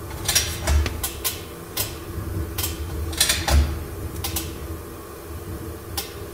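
A run of about a dozen sharp metallic clicks and creaks, bunched in the first four and a half seconds with one more near the end, from a crash-damaged car frame being pulled straight little by little with a chain. A steady low hum runs underneath.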